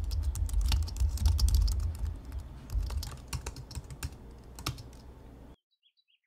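Computer keyboard typing: a run of irregular key clicks over a low rumble, which cuts off suddenly about five and a half seconds in.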